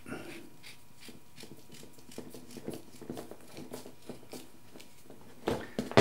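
Faint rubbing and small clicks of a black XLR connector shell and strain relief being twisted and worked onto a mic cable by hand. A louder knock comes near the end as the assembled connector is set down on the wooden bench.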